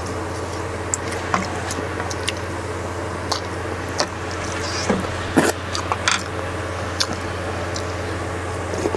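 A wooden spoon scraping and tapping against a plastic food container and a stainless steel pot as leftover soup is scraped out. A few wet squishing sounds come around the middle, and a steady low hum runs underneath.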